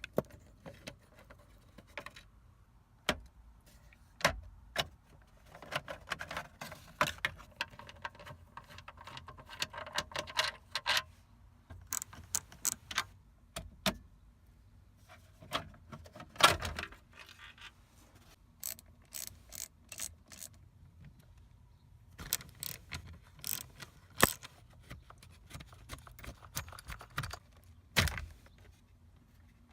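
Scattered clicks, clinks and short rattles of tools and small parts being handled at a Mercedes Sprinter's steering column, with the loudest knock about halfway through.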